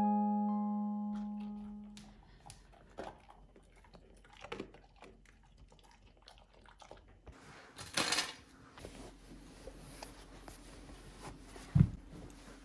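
Music: a held chord fading out over the first two seconds, then faint scattered clicks and knocks, a short hiss about eight seconds in, and a single heavy thump shortly before the end.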